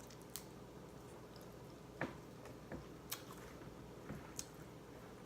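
Faint close-up chewing of seafood boil crab legs, with a few scattered sharp clicks and snaps.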